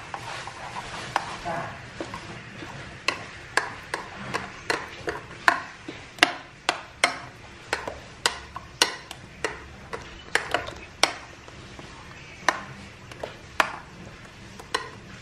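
A spoon stirring thick achar in a ceramic bowl, clinking sharply against the bowl again and again, two or three clinks a second, starting about three seconds in.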